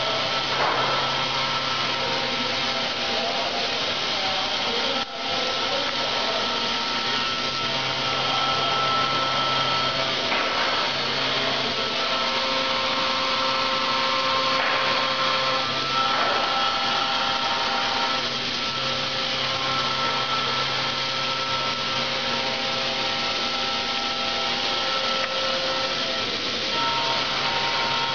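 Robotic milling spindle cutting stone: a steady grinding noise with a held whine over it. Underneath, a low hum drops in and out every few seconds.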